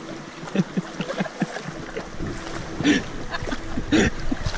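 River water washing around a whitewater kayak as the paddler rocks it and works the paddle, with two short splashy bursts near the end. Brief bits of voices come and go underneath.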